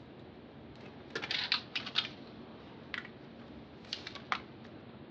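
Manual typewriter keys striking in short, irregular runs: a quick flurry about a second in, then scattered single strokes.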